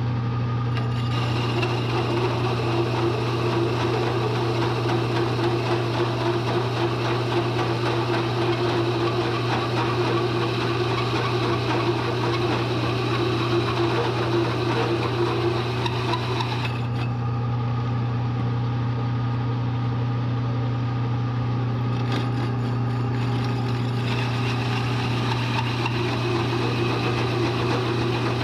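Bridgeport milling machine running with a hole saw cutting into steel plate: a steady motor hum under a scraping cutting noise. The high cutting noise thins out briefly twice in the second half.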